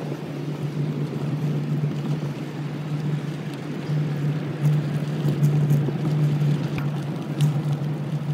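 A small vehicle's motor running at a steady pitch while moving along a dirt trail, with a few sharp ticks over it.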